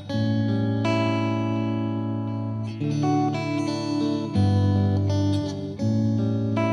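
Background music led by guitar, with sustained chords that change every second or so.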